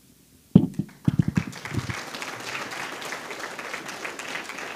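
A sharp thump and a few low knocks, then an audience applauding steadily.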